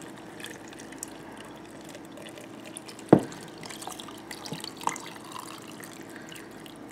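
Vinegar brine poured from a saucepan into a jar of cucumber spears: liquid running and dripping into the jar, with one sharp knock about three seconds in and a lighter one near five seconds.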